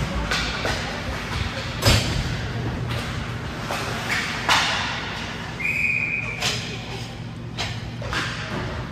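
Ice hockey play in a rink: sharp cracks of sticks and puck striking, five or so times, over an echoing arena with faint voices. A brief high steady tone sounds about six seconds in.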